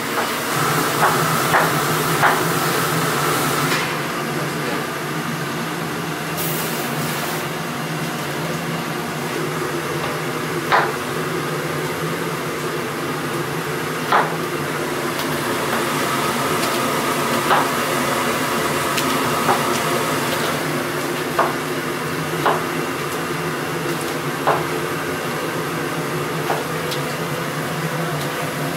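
Steady kitchen background noise with a constant low hum, broken every couple of seconds by short sharp knocks and clinks as raw pig's trotters are handled in a stainless steel bowl.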